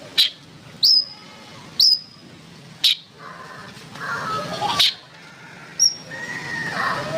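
Oriental magpie-robin (kacer) singing: a run of sharp upswept whistles, each ending in a brief high held note, about one a second, with softer warbling between them around the middle and near the end.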